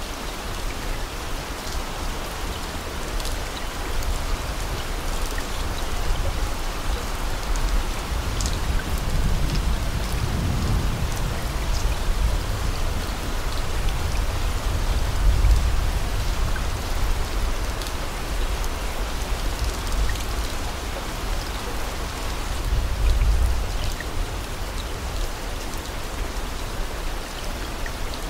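Steady rain ambience with scattered drop ticks, and a low rumble that swells up three times.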